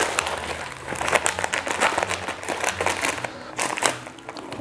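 Plastic snack packets and a clear plastic bag crinkling and rustling as they are handled, in a quick run of irregular crackles.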